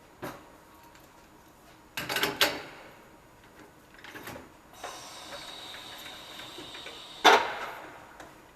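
Clanks and knocks of a wheel being handled on a tire-balancing machine, then a steady high whine for about two and a half seconds that ends in a loud clunk.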